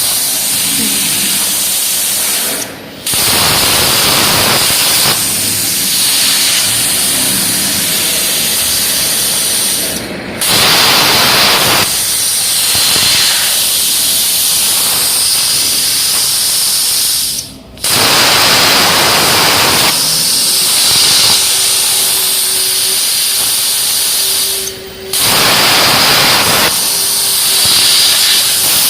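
CNC air plasma cutter arc cutting thin 2 mm steel sheet, a loud steady hiss. The arc cuts out briefly four times, about every seven seconds, and restarts with a louder burst each time, as the torch finishes one cut and starts the next.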